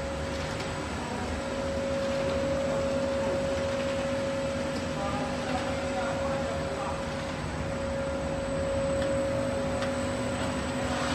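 Mono-layer LDPE film blowing machine running: a steady industrial hum with a constant whine from the extruder's drive motor and belt drive.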